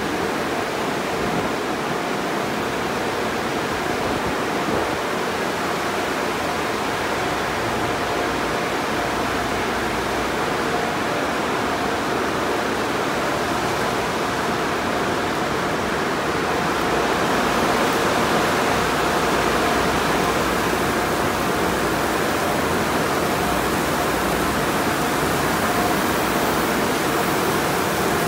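Conveyor car wash tunnel running: a steady rush of water spray and spinning cloth wrap brushes washing a car, with a faint machine hum underneath. It gets a little louder about two-thirds of the way through.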